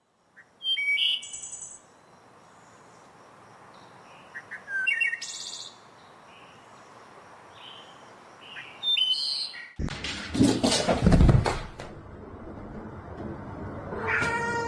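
Birds chirping in short high bursts with quick pitch glides, over a low steady background. About ten seconds in comes a loud spell of clicking and rustling, and near the end a short pitched animal call.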